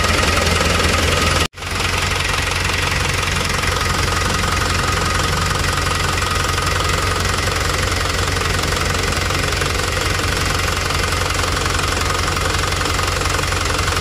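Hino Dutro truck's diesel engine idling with a steady diesel clatter while its idle speed is being set at the inline injection pump. The sound breaks off for an instant about one and a half seconds in.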